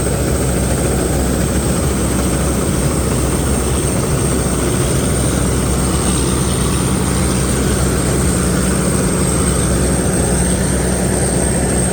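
Home-built rice combine harvester's diesel engine running steadily under load, with a constant high whine above the engine hum.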